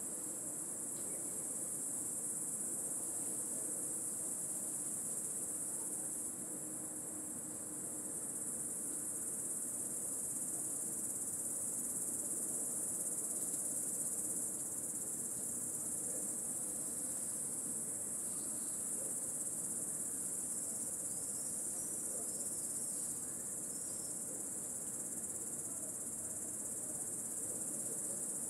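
An intense chorus of cicadas: one continuous, high-pitched shrill drone that holds steady without a break.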